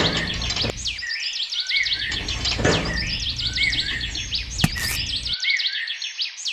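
Birds chirping and calling, a pattern of quick high chirps that repeats about every two and a half seconds like a looped birdsong track. Under it runs a low background that cuts out abruptly twice.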